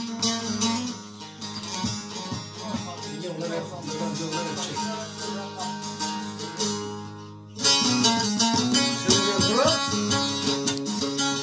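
Bağlama (saz) playing a Turkish folk tune, quick plucked notes over a droning low string. About seven and a half seconds in the sound drops away and comes back suddenly louder.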